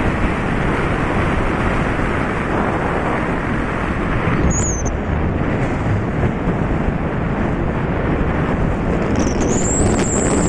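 Steady rushing road and wind noise from a moving vehicle at highway speed, with wind buffeting the microphone. A brief high whistling tone sounds about halfway through, and a longer high warbling whistle comes in near the end.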